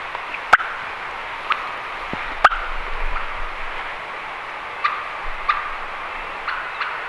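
Woodland ambience: a steady rush of running creek water, with scattered short chirps of small birds and a few sharp clicks.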